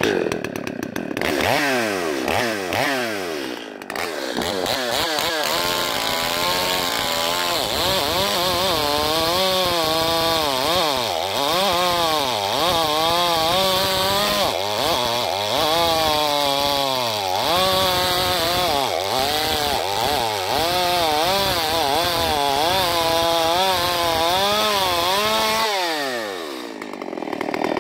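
Stihl MS250 two-stroke chainsaw pull-started on its freshly rewound recoil cord and catching right away, then run at high revs that rise and fall over and over as it cuts into a log. Near the end the revs drop away.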